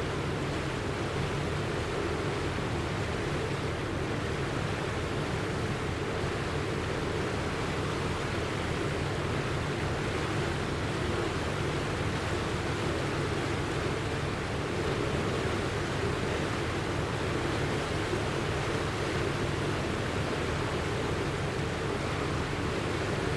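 Steady rushing water noise with a low rumble underneath, a flood sound effect laid over the tsunami simulation.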